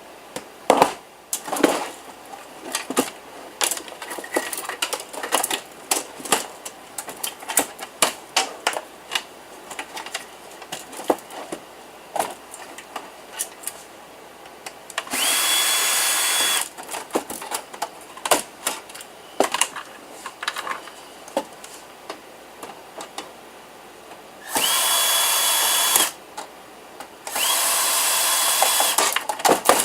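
Cordless power drill/driver running three times for a second or two each, its motor whining up to speed and holding, as screws are driven out of a PC tower's sheet-steel case. Between the runs, scattered clicks and clanks of metal parts and screws being handled.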